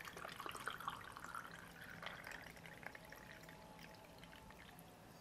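Iced drink poured from a plastic pitcher into a glass mug over ice cubes: a faint pouring trickle with small clicks of ice, tapering off near the end.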